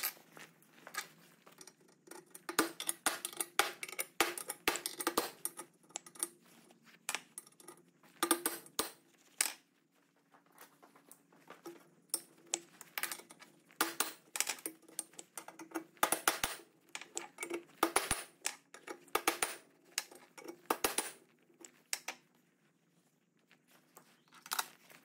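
Steel transfer punches clinking and tapping in the bolt holes of a steel riser ring while hole positions are marked through onto the new block: clusters of light, sharp metallic clicks every few seconds, with short quiet gaps between.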